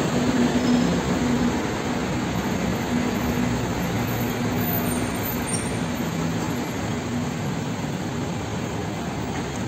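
Steady road traffic noise from vehicles passing on a busy city street, with a low engine hum from a nearby vehicle that dies away about six seconds in.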